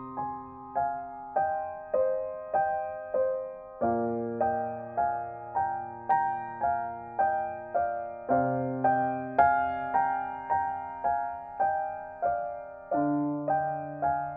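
Soft piano music: a gentle, evenly paced pattern of single notes, a little under two a second, each fading away, over a low note that changes every four seconds or so.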